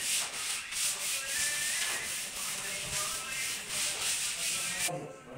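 Hands rubbing hard across a Formica laminate sheet, pressing it down onto the glued table top: a rapid run of hissing scraping strokes that stops abruptly near the end.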